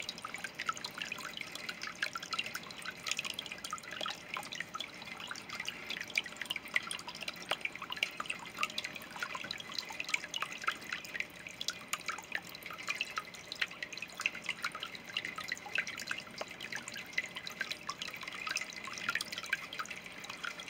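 Water dripping and trickling onto the surface of a small patio bowl pond: a steady, dense patter of small drops that keeps the surface moving.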